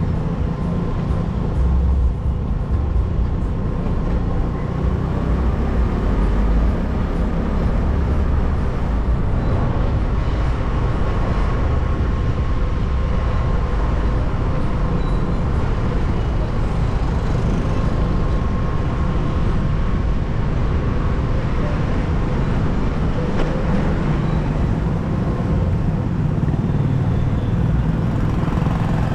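Steady low rumble of a moving road vehicle, with a faint thin whine held through most of it.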